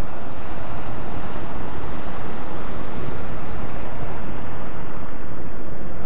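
Steady wind noise buffeting the microphone over the wash of sea surf breaking against rocks.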